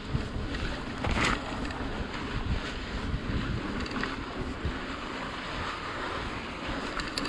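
Wind rushing over the microphone as a mountain bike rolls along a dirt trail, with tyre and ride noise underneath and a brief louder patch about a second in.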